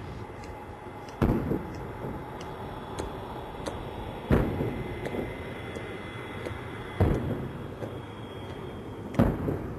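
Saluting guns firing a ceremonial salute: four heavy booms about three seconds apart, each ringing on briefly. Under them runs a steady high whine from the parked jet airliner.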